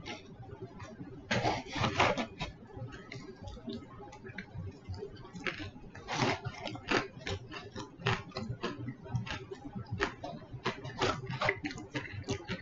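A person chewing fried chicken close to the microphone: irregular short wet smacking and mouth sounds, a few louder ones standing out.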